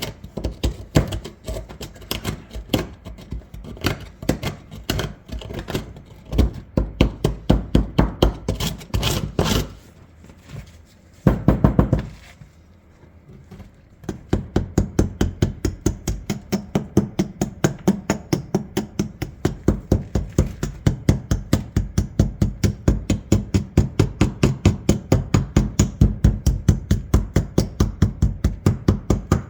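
Rapid repeated tapping as encrusted rust is chipped away from a corroded magnet-fished shotgun. Irregular at first, with brief pauses near the middle, then settling into a steady run of about three to four taps a second.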